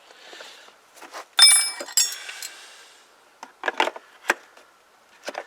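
Metal hand tools clinking together, with a bright ringing clatter about a second and a half in, then a handful of short clicks and knocks as a spanner or socket is fitted to a motorcycle fork's top bolt.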